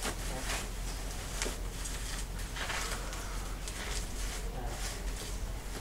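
Clear plastic wrapping crinkling and rustling in irregular bursts as it is pulled and handled off a bicycle.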